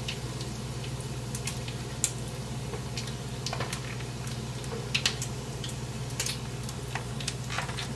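Bacon frying in a pan, with scattered sharp pops of spitting grease over a steady low hum.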